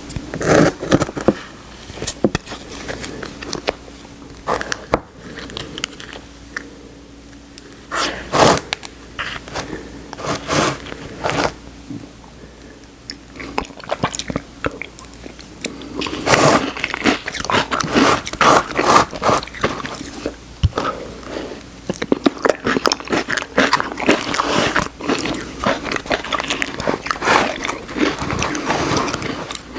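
Close-miked eating of Oreo ice cream: bites, chewing and crunching of cookie pieces, with many short wet clicks and smacks. The sounds come in scattered bursts at first and grow almost continuous about halfway through.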